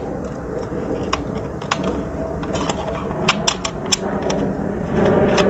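Scattered light metallic clicks and ticks of bolts and an open-end wrench as a headlight is tightened onto its bracket on the fork, over a steady mechanical hum that grows louder near the end.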